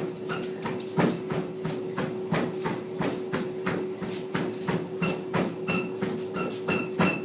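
Running footfalls pounding a treadmill belt at about 5 mph, about three thuds a second, over the steady hum of the treadmill's motor.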